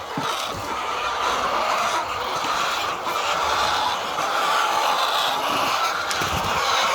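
A flock of laying hens clucking together in a dense, continuous chatter of many overlapping calls.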